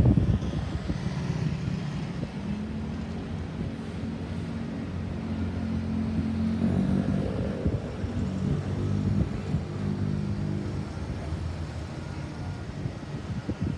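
Motor vehicle engine running in road traffic, a steady low hum that swells a little in the middle and then eases off.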